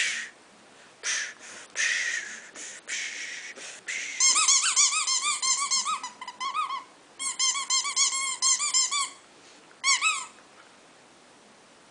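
Short hissy rustling puffs, then runs of quick high-pitched squeaks, several a second, in bursts lasting a second or more that stop a little after ten seconds.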